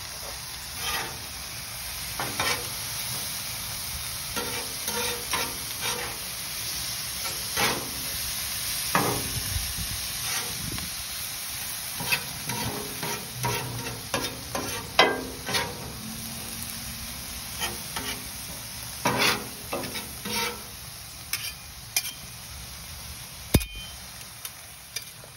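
Metal spatulas scraping and clacking on a Blackstone flat-top griddle as sliced vegetables are tossed and turned, over a steady sizzle of food frying on the hot plate. The scrapes come irregularly, several at a time.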